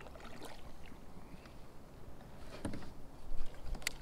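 Kayak and fishing-gear handling noise: a low rumble with a few scattered knocks and clicks, the loudest a thump about three and a half seconds in, followed by a sharp click.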